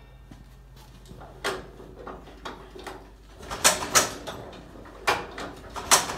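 A vintage Farmall tractor engine being hand-cranked on priming turns, not yet firing: a handful of sharp, irregularly spaced clunks and puffs as the crank turns the engine over.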